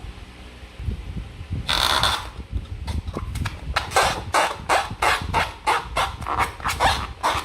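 Slime being worked by hand, giving a rhythmic wet squelch about three times a second from about three seconds in, after a brief rushing squish about two seconds in.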